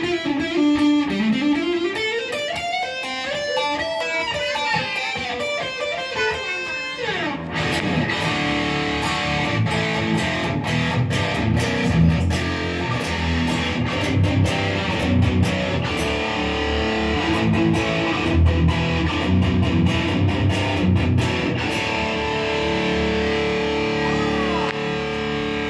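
Ibanez GIO electric guitar played solo. For about the first seven seconds it plays a run of single notes that slide up and down in pitch, then it switches to heavier, lower riffing with sharp picked attacks and held notes.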